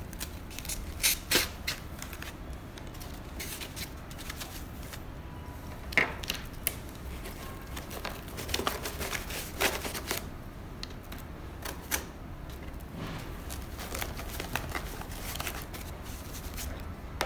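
Hands packing a switch panel kit's parts and packaging back into a box: irregular clicks, knocks and rustling, with a few sharper knocks now and then.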